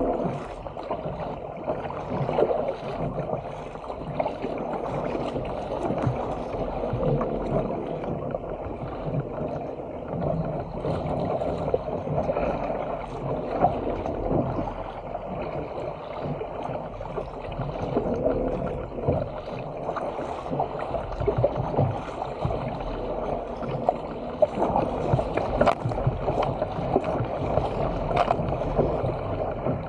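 Water rushing and splashing around the hull of a Stealth 457 fishing ski paddled through open-sea chop, with the irregular splash of the paddle blades entering and leaving the water on each stroke.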